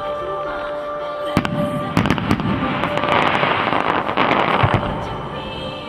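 Aerial firework shells bursting: a sharp bang about a second and a half in, then a dense run of cracks and crackling from about two seconds to five, fading near the end.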